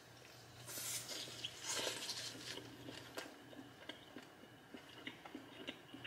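Faint crunching and rustling of food being handled and eaten, with a few small clicks, over a low steady hum.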